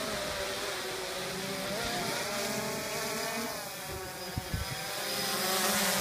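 DJI Phantom 2 Vision quadcopter in flight: the buzzing whine of its motors and propellers, its pitch wavering up and down, growing louder toward the end.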